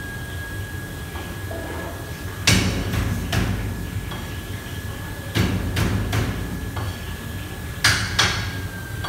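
Sharp clanks and knocks of cookware being worked at the stove, in three quick groups of two or three, the first the loudest. Underneath, the steady hum of the kitchen's extraction and fans with a thin steady whine.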